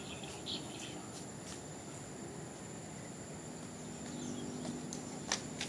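Quiet outdoor ambience with a steady high insect buzz, as of crickets, and a few faint knocks, the loudest about five seconds in.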